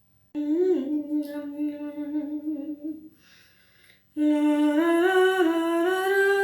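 A woman humming a tune with long held notes, in two phrases with a short breath between them; the second phrase slowly rises in pitch.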